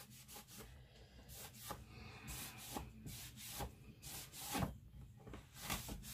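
Damp cloth rubbing gray paint over a white chalk-painted wooden board in faint, irregular swishing strokes, distressing the finish.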